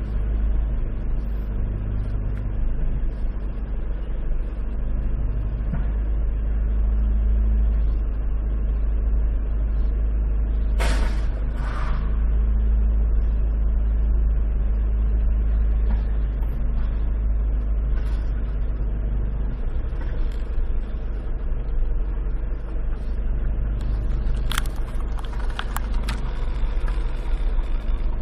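Street traffic: vehicle engines running with a steady low hum and rumble. A short hiss comes about eleven seconds in, and a few sharp clicks near the end.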